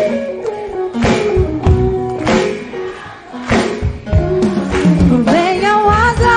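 Gospel worship band music: regular drum hits under sustained instrumental chords, and about five seconds in a voice comes in singing a held note with vibrato.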